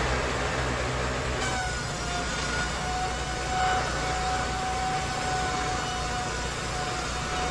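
An engine running steadily; about a second and a half in, a steady whine joins it and holds.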